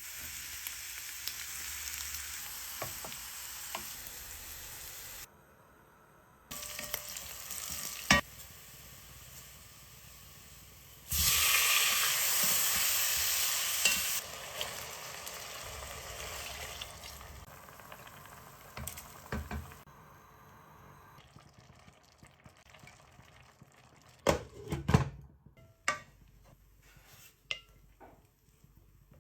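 Food sizzling in hot oil in a cooking pot while it is stirred, in several short clips that start and stop abruptly, loudest in a stretch about eleven seconds in. A spoon knocks against the pot now and then, and near the end the sizzle dies down to a few sharp knocks.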